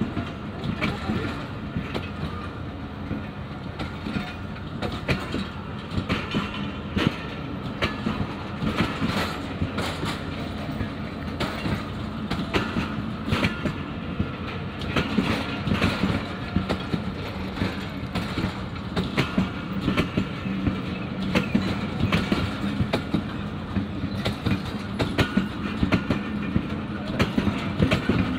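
Pak Business Express passenger coaches rolling past as the train pulls out, wheels clacking over the rail joints in an irregular run of clicks over a steady low rumble. The clacks grow a little louder toward the end.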